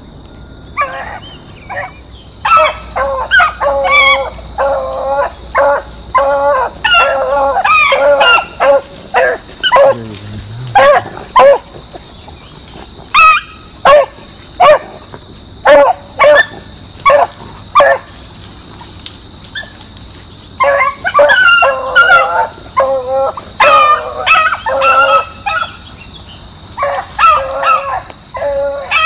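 Young beagle hounds baying on a rabbit track: a run of barks, several voices at times overlapping, with a pause of about two seconds about two-thirds of the way through before the barking picks up again.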